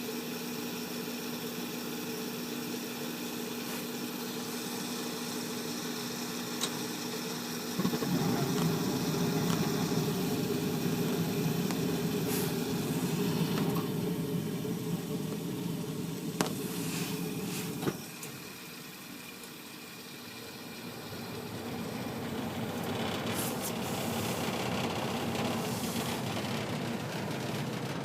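Gas furnace cycling on and off, started by jumping the thermostat wires: a steady humming run, then about a third of the way in a sudden louder rush of air and burner noise for about ten seconds that cuts off abruptly with a click, and after a short lull the blower spins up gradually again.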